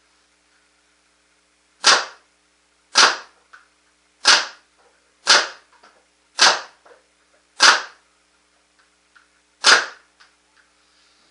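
A Proto Matrix Rail paintball marker fitted with a 360 QEV fires seven single shots on high-pressure air, about one to two seconds apart with a longer pause before the last. Faint knocks follow some of the shots.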